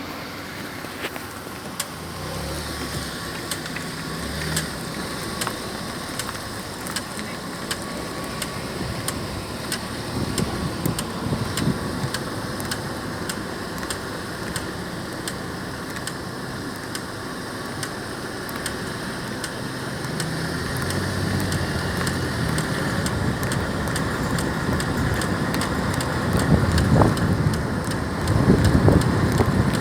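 A car's front wheel ticks while driving, a regular click a couple of times a second that keeps time with the wheel turning, over engine and road rumble.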